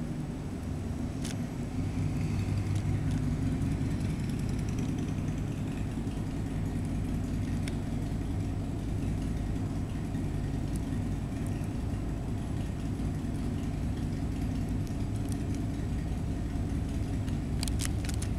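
Steady low mechanical hum, like an engine or motor running at idle, getting a little louder about two seconds in. A few sharp clicks come near the end.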